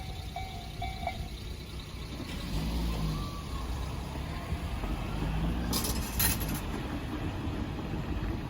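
Japanese railway level crossing's electronic warning bell (JR standard sound) ringing about twice a second, then stopping about a second in. Road vehicles then drive over the crossing, with a brief hiss about six seconds in.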